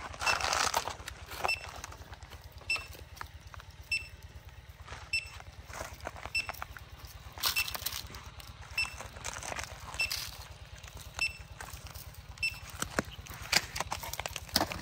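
A short, high electronic beep repeating evenly about every second and a quarter, over irregular knocks and scrapes and a steady low hum.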